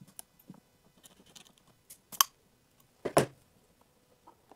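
Pliers working a spring hose clamp on a rubber fuel pipe: light clicks and handling, then two sharp metallic snaps about a second apart, the second the loudest, as the clamp is squeezed and let go.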